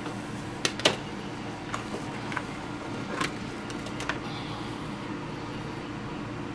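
A few scattered clicks and taps as hands handle a spatula, an aluminium pie tin and plastic tubs of bedding compound on a workbench, the loudest about a second in and about three seconds in. A steady background hum runs underneath.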